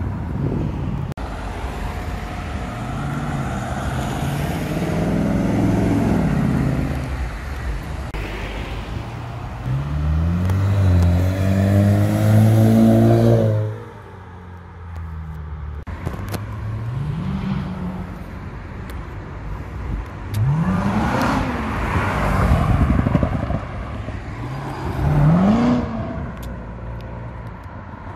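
Several sports-car engines accelerating hard past one after another, each rising in pitch as it revs up through the gears. The loudest run, about ten to thirteen seconds in, climbs through several gear steps and then cuts off abruptly; shorter revving runs follow in the second half.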